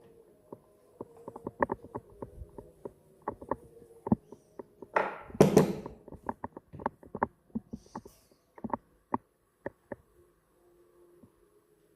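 Irregular sharp clicks and taps, with a short scraping rush about five seconds in, from the coffee grinder and its freshly ground coffee being handled once the grinder has stopped.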